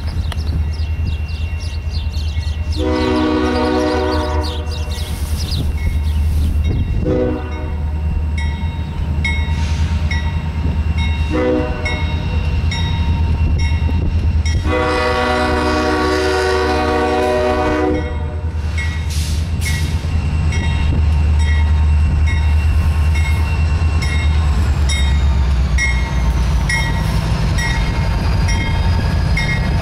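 Air horn of a CSX diesel freight locomotive sounding a chord in four blasts: a long one, two short ones, then a long one. The locomotives' diesel engines rumble underneath, growing louder as the lead units come alongside near the end.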